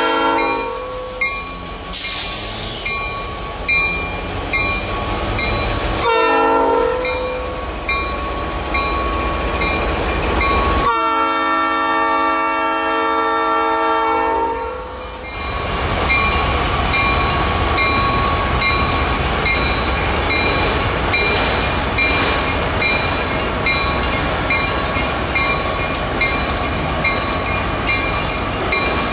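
Horn of a Norfolk Southern diesel freight locomotive passing: one blast ends just at the start, a short blast comes about six seconds in and a longer one of about three seconds near the middle. Under the horn and after it, the train's auto rack cars rumble and clatter past without a break.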